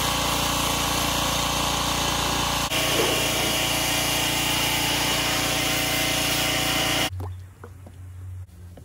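Pressure washer running steadily, its water jet spraying onto an ATV's plastic fenders. It stops abruptly about seven seconds in, leaving only faint handling sounds.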